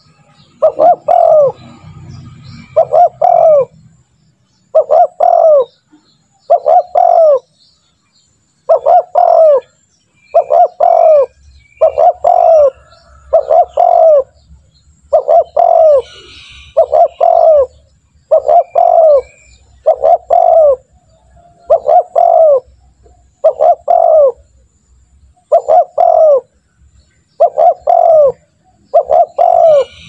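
Spotted dove cooing: a phrase of two or three short coos, repeated over and over about every couple of seconds.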